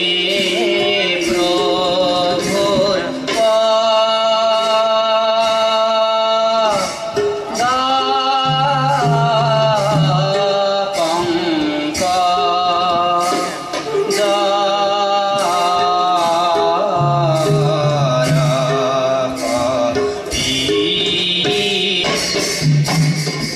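Borgeet in Rag Ahir sung by a male voice with long, wavering held notes, accompanied by a bansuri flute and a khol drum. A steady beat of sharp strokes, about two a second, runs beneath the melody.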